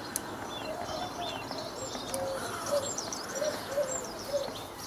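Birds calling outdoors: a string of short, low, arched notes repeating a few times a second, with thin higher chirps above.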